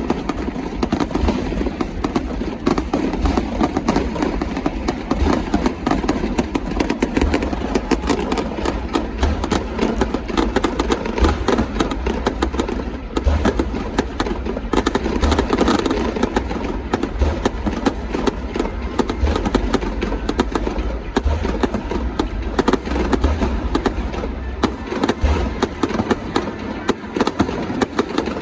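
Fireworks going off in a dense, continuous barrage of overlapping bangs and crackles, with a steady low rumble beneath.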